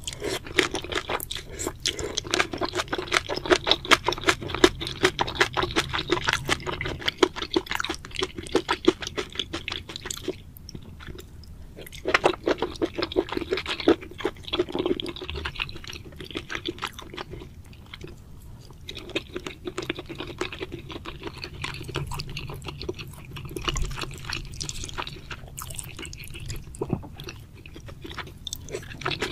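Close-miked mukbang eating sounds: wet chewing and slurping of spicy seafood noodles, with crisp crunching bites. The sounds thin out briefly about a third of the way in and again just past halfway.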